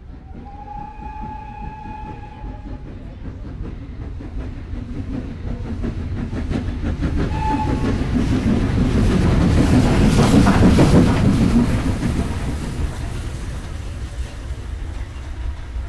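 Steam locomotive blowing its whistle, one long blast and then a short one, then working past under heavy steam: the rumble and beat of the engine and its wheels build to a peak about ten seconds in and fade as it pulls away.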